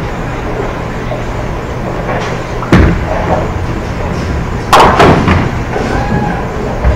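Bowling alley noise: a sharp crash of a ball striking pins about three seconds in, then a second, longer clattering crash near five seconds, over a steady rumble and hum of lanes and pinsetter machinery.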